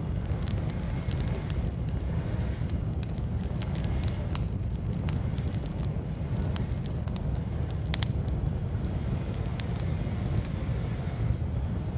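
Wood fire crackling in a ground fire pit, with sharp pops and snaps scattered irregularly and one louder snap about eight seconds in, over a steady low rumble of wind on the microphone.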